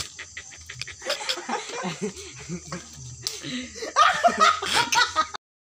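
Young men laughing, with a few short clicks in the first second; the laughter grows louder about four seconds in, then the sound cuts out abruptly near the end.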